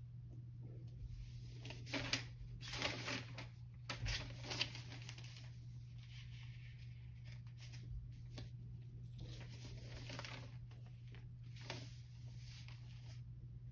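Sheets of paper on a clipboard being leafed through and rustled, loudest in a cluster of rustles about two to five seconds in, with fainter rustles later. A steady low hum runs underneath.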